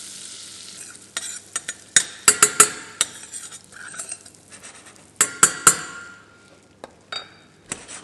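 Metal spoon stirring butter and brown sugar in a stainless steel saucepan, the butter sizzling at first. The spoon scrapes and clinks against the pan, with a cluster of sharp clinks about two seconds in and another about five seconds in, as the mixture heats toward caramel.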